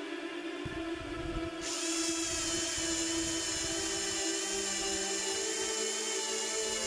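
Parkside PBHA 12 A1 12 V cordless hammer drill boring a spade bit into a wooden plank: a steady high-pitched motor whine with a hiss of cutting, starting about a second and a half in, over background music.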